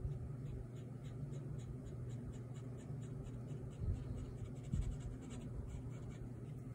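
Ink brush pen stroking across paper: faint, quick, repeated scratchy strokes, about three a second, over a steady low hum.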